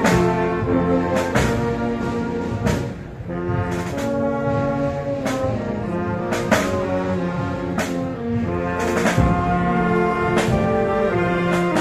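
A Spanish banda de música (tubas, saxophones, trumpets, snare drum) playing a slow procession march: sustained brass chords over a steady percussion stroke about every 1.3 seconds.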